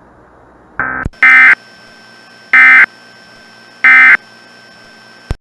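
Emergency Alert System end-of-message data tones: three short, loud, screechy bursts of SAME digital header tones about 1.3 seconds apart, marking the end of the alert. A brief tone and a click come just before them, and another click near the end.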